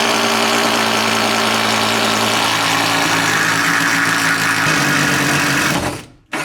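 Cordless drill running steadily under load, boring through the house wall for the plumbing. It slows slightly late on, cuts out near the end and starts again briefly: the drill's battery is going flat.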